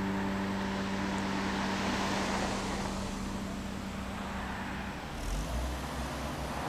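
A car driving past on an asphalt road: tyre and engine noise swells in the first couple of seconds, then slowly fades, with a low rumble about five seconds in.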